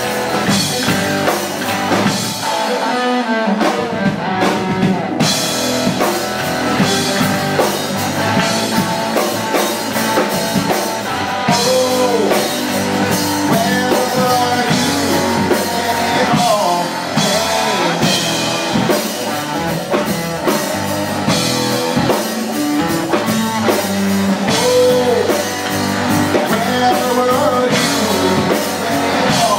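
Rock music played by a band: drum kit and guitar, with a voice singing over it from about a third of the way in.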